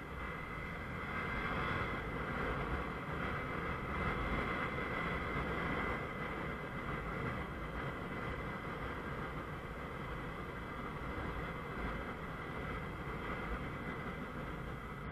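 Honda CBF 125 motorcycle's single-cylinder engine running while riding along, mixed with steady road and wind noise, a little louder from about one to six seconds in.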